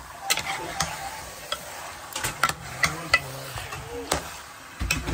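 Metal spoon stirring chunks of raw meat and onion in an aluminium pot, clinking and scraping against the pot's sides a dozen or so times, with a light sizzle underneath as the meat starts to fry.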